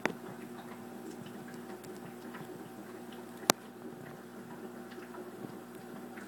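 Steady hum of aquarium equipment with a light bubbling wash, broken by two sharp clicks: one right at the start and one about three and a half seconds in.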